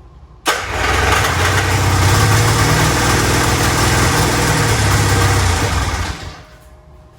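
Yamaha 540 two-stroke snowmobile engine in a homemade kart catching and firing up suddenly about half a second in, running steadily for about five seconds, then dying away, which the owner puts down to running out of fuel.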